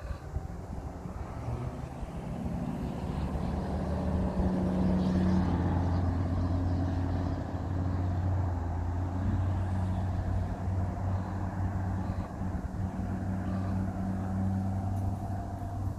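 A motor vehicle's engine running with a steady low hum, growing louder over the first few seconds and then holding steady.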